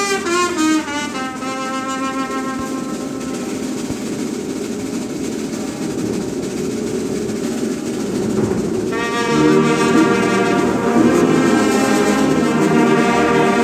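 Large church brass band, sousaphones and tubas prominent, playing sustained chords. The band comes in louder and fuller about nine seconds in.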